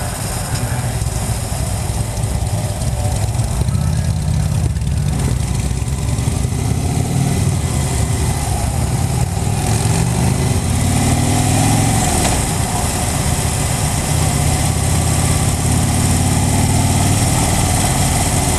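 Motorcycle engine running while riding, its note climbing with acceleration, dropping about twelve seconds in and climbing again, over a steady rush of wind.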